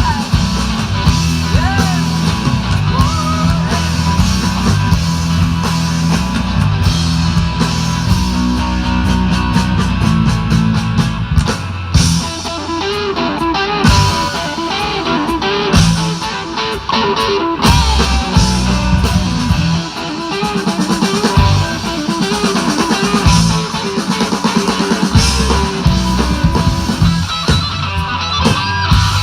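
Live blues-rock band playing an instrumental passage: guitar over bass and a drum kit, with no vocals.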